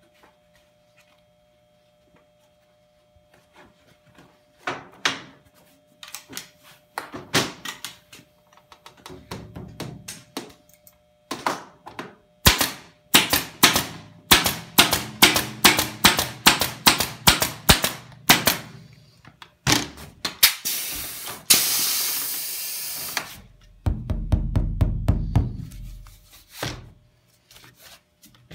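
Air-powered staple gun firing staples in quick succession, about three to four shots a second, into a canvas stretcher bar, with scattered knocks before it. A loud hiss of air follows, then a few low thumps near the end.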